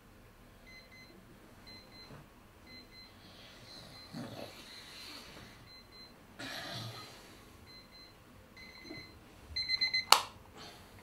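Electronic alarm beeping: short high beeps come about once a second, then quicken and grow louder before a sharp click about ten seconds in, after which the beeping stops.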